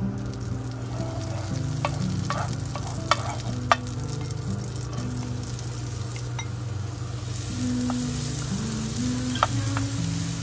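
Sizzling with sharp clicks and stirring, as of cooking in a pan, over soft background music; the hiss grows louder about seven seconds in.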